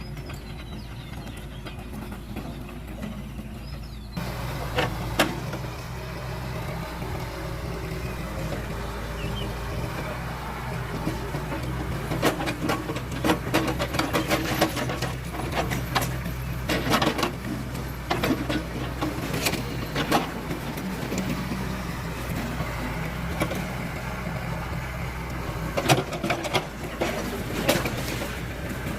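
A heavy engine running steadily, its sound growing fuller about four seconds in, with sharp knocks scattered through the rest.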